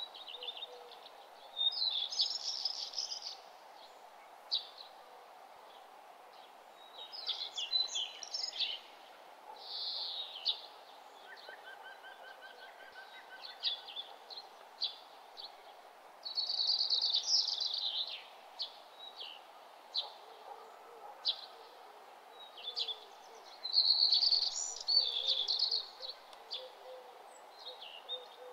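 Birds chirping and singing in short phrases every few seconds, over a steady background hum.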